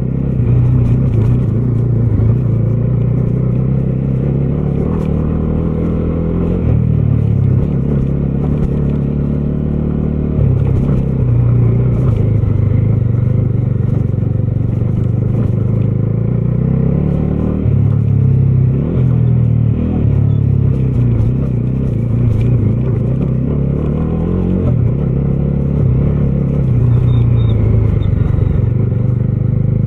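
Bajaj Dominar 250's single-cylinder engine running as the motorcycle rides along. The engine note climbs and falls back again and again with the throttle, over steady road and wind noise.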